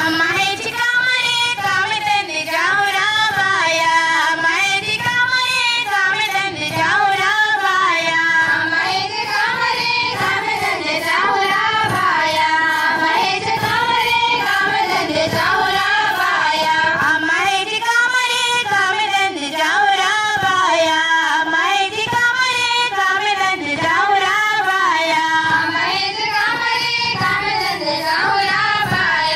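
Indian folk song for a dance, sung by high voices, one melodic phrase repeating every few seconds over a musical accompaniment.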